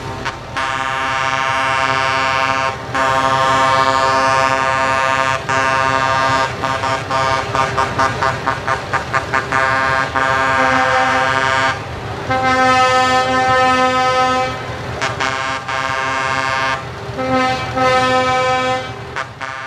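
Truck air horns sounding: long held multi-note blasts broken by short gaps, a run of quick short toots in the middle, then long blasts of a different horn chord in the second half. A low steady engine hum lies underneath.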